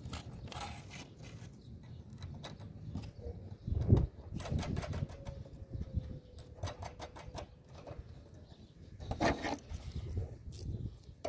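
Small metal handling sounds of a washer and nut being fitted by hand onto a galvanised hook bolt through a corrugated fibre-cement roof sheet: scattered clicks and knocks, with a thump about 4 seconds in and a quick run of fast clicks a few seconds later.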